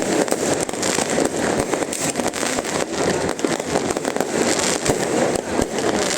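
Fireworks going off without pause: a dense, continuous run of rapid bangs and crackles.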